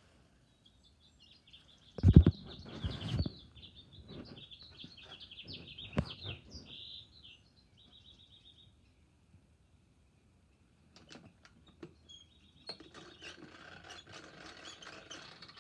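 Small birds chirping and twittering in short broken phrases, with clicks and knocks of plastic toy parts being handled; a sharp knock about two seconds in is the loudest sound.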